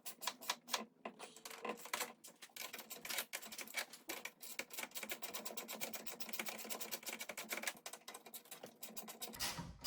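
Hand ratchet wrench clicking rapidly and without a break as it turns a 14mm mounting bolt of the steering column bracket. A low rumble comes in near the end.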